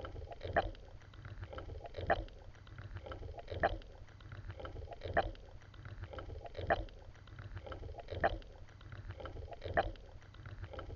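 Regular splashing strokes in water, one strong stroke about every one and a half seconds with lighter splashes between, over a steady low rumble.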